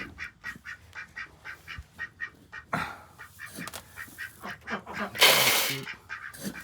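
Ducks quacking over and over. About five seconds in, a loud rush of dry feed poured from a scoop into their feeder.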